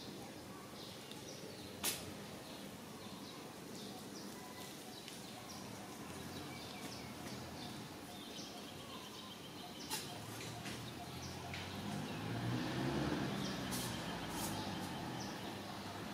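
Outdoor ambience of birds chirping in short, high, repeated calls, with two sharp clicks, one about two seconds in and one about ten seconds in. A low rumble builds in the last few seconds.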